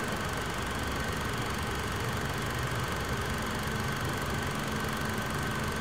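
Steady low mechanical hum with a faint, steady high whine above it, unchanging throughout.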